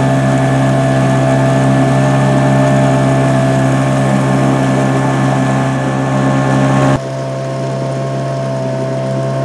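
Outboard motor running steadily with the boat under way, a motor with a suspected fuel-supply fault being tested. Its level drops a little about seven seconds in.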